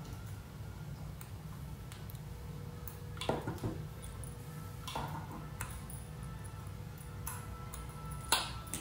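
A few light clicks and taps of small hand tools (needle-nose pliers, a small screwdriver) against the plastic parts of a disassembled Baofeng UV-5R handheld radio while drilling debris is picked out, over a low steady hum. The sharpest tap comes near the end.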